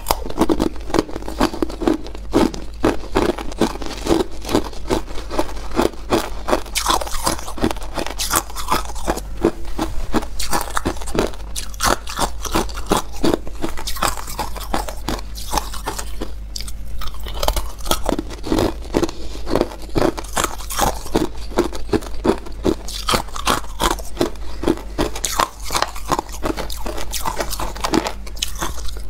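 Hard, clear ice cubes being crunched and chewed in the mouth: a fast, unbroken run of crisp cracks, with a short pause just past halfway.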